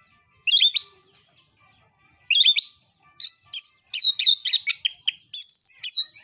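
Oriental magpie-robin (kacer) singing loud whistled phrases: two short bursts, then from about three seconds in a fast run of repeated notes that each fall in pitch.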